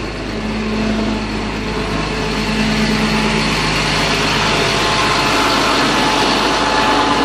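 Truck engine and road noise heard from inside the cab while driving, a steady hum and rush of noise.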